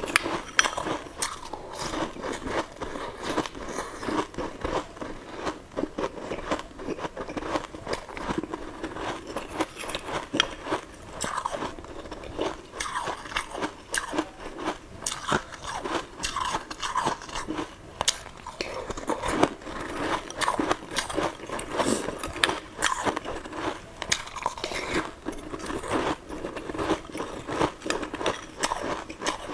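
Close-up mouth sounds of a person biting, crunching and chewing round balls of food eaten from a spoon, with many irregular sharp crunches throughout.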